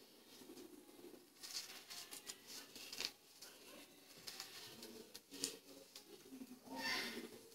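Faint handling of a zipper: a zipper slider being worked onto the zipper chain by hand, with light rustling and a couple of short sharp clicks.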